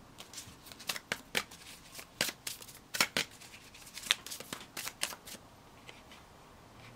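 Tarot cards being shuffled and handled: a run of irregular crisp card snaps, a few per second.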